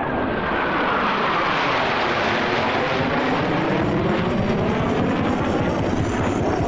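A pair of Blue Angels F/A-18 jets flying past with a loud jet roar. The whine drops steeply in pitch over the first three seconds as they go by.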